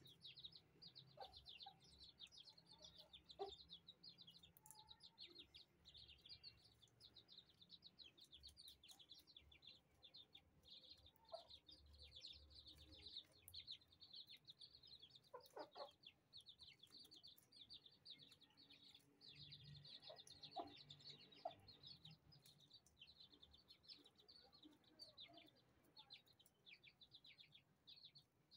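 Chicks peeping faintly, a rapid stream of high cheeps, with a few short, lower clucks from the hen brooding them.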